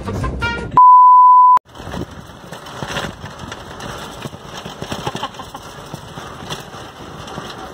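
A loud, steady single-tone electronic beep, just under a second long, about a second in; after it, the rattle and wind noise of riding in an open street quadricycle.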